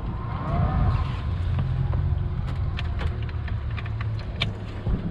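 A boat engine running steadily at low speed, a low even hum, with scattered light clicks and knocks over it.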